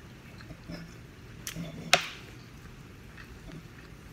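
A person chewing food close to the microphone, with small mouth clicks throughout. Two sharp clicks come about one and a half and two seconds in, the second the loudest, with a short ring after it.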